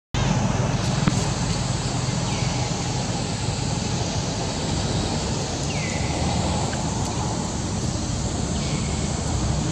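Steady outdoor background noise with a low rumble, like wind or distant traffic, and three faint falling chirps about three seconds apart.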